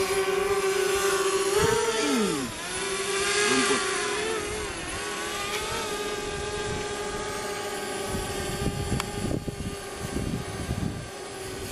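Camera drone's propellers giving a steady, high buzzing whine. Its pitch dips and rises a couple of times in the first few seconds as the drone changes speed. Low irregular rumbles come in during the second half.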